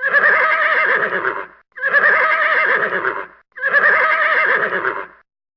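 Horse whinnying loudly three times in a row, the same shaking, wavering whinny of about a second and a half repeated with short gaps between.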